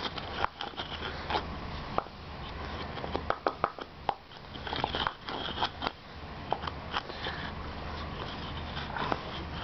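Wooden pestle grinding dried pomegranate seeds (anardana) in a stone mortar: rubbing and scraping with irregular crunching clicks and knocks.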